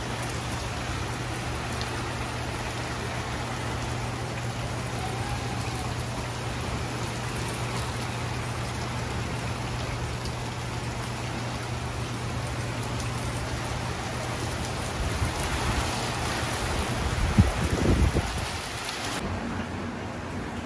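Steady rain falling, a dense even hiss of drops. About three-quarters of the way through comes a loud, low rumbling burst. Shortly before the end the rain suddenly sounds duller and quieter, heard from indoors behind a window.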